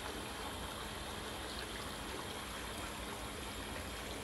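Steady rush of running water, an even hiss that holds level without breaks.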